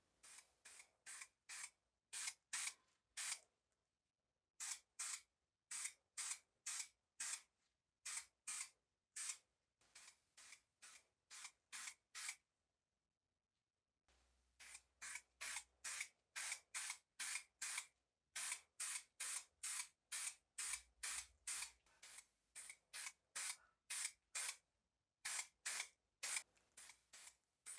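Aerosol can of high-temperature spray paint hissing in dozens of short bursts, about two a second, with a brief pause about halfway through.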